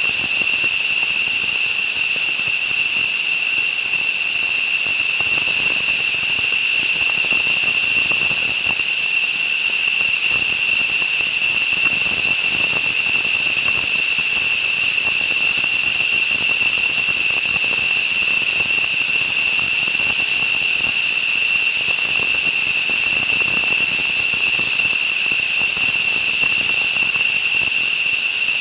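Turbine engine running steadily: a constant high-pitched whine of several tones over a loud hiss, with no change in pitch or level.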